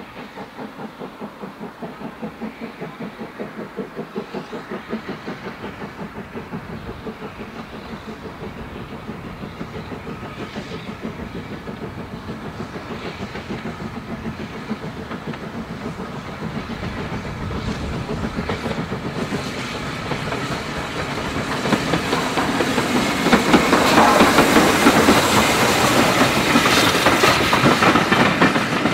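LSWR T3 4-4-0 steam locomotive working under steam, its exhaust beating in a fast, even rhythm that grows louder as it approaches. From a little past twenty seconds it passes close, and the clatter of its wheels and coaches over the rail joints joins the beat.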